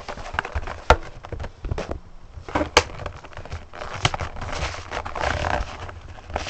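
Toy retail packaging being opened by hand: several sharp clicks and snaps, the loudest near the middle, with rustling and crinkling of the package in the second half.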